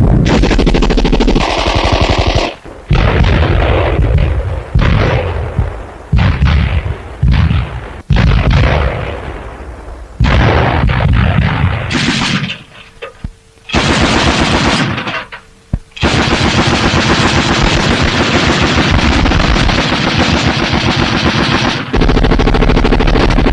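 Machine-gun fire in repeated bursts with short breaks between them, then one long unbroken burst lasting several seconds in the second half.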